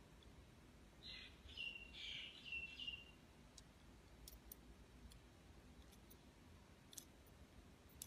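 Near silence: room tone, with a few faint short high chirps between one and three seconds in and a handful of faint light clicks after them.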